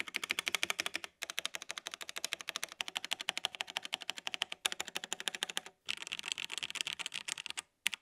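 Fast typing on a Koorui 60% mechanical keyboard, keys and spacebar clacking in quick succession, picked up close by a mic held just over the board, with a few brief pauses.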